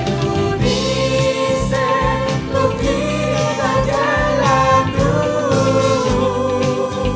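Mixed choir of men and women singing a Spanish-language hymn, with a drum kit keeping a steady beat.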